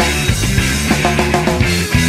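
Rock band playing: quick, dense drum hits over bass and guitar.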